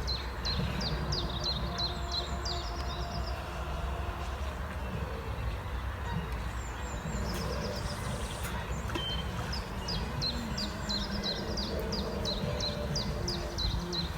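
A steady low rumble, with a small bird repeating a short, high, falling chirp about three times a second in two runs, the second starting about seven seconds in.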